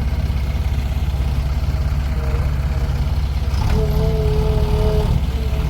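Heavy diesel engine running with a steady low rumble. About three and a half seconds in it picks up slightly and a steady two-note tone sounds over it for about a second and a half.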